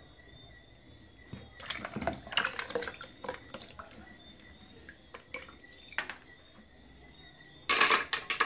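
Wet raw peanuts being handled and dropped into water in a plastic blender jar: a run of small splashes, drips and clicks, then scattered clicks, and a louder half-second rush of noise near the end.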